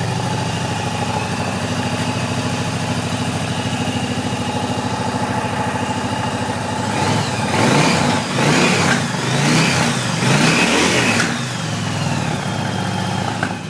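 Yamaha V-Star 1100 Custom's air-cooled V-twin on its stock exhaust, fast-idling with the choke on, then revved several times in quick blips about halfway through before settling back to idle. The stock pipes sound mild and meek.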